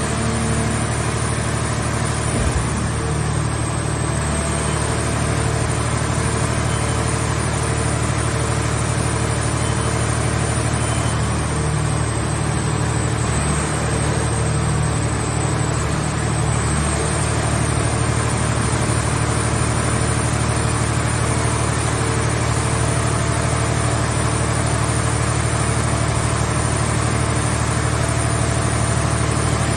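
Engine of a portable car-shell baler running steadily, a low even hum with a thin high whine over it. There is one short knock about two and a half seconds in.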